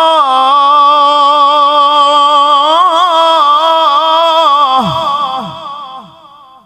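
Male Qur'an reciter (qari) chanting in the melodic tilawah style, holding one long, wavering, ornamented note. About five seconds in the pitch falls away in a few downward slides and the voice fades out.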